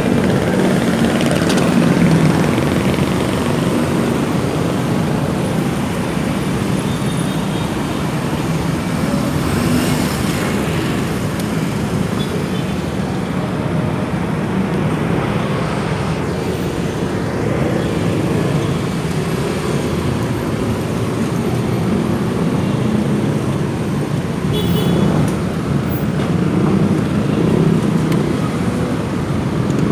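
Motorcycle running on a city street in traffic, with a steady mix of engine and road noise from the surrounding vehicles.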